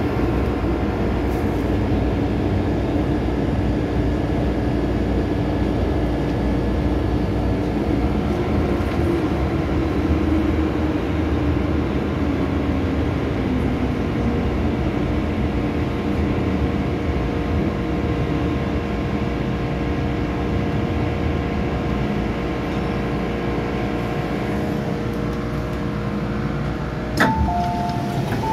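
Interior of an MTR M-Train running, with a steady rumble and the traction motors' whine, whose pitch falls about halfway through as the train brakes into a station. Near the end a sharp click and a two-note falling chime as the doors open.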